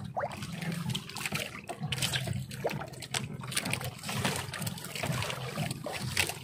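Water trickling and splashing, with scattered small knocks, as a wet fishing net is handled over the side of a small boat. A low steady hum runs underneath.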